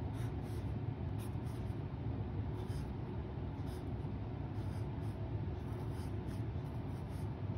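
Felt-tip marker scratching across paper in short, irregular strokes as Urdu letters are written, over a steady low hum.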